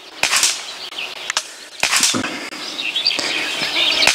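Several sharp gunshots at uneven spacing, the loudest near the end, with birds chirping faintly between them.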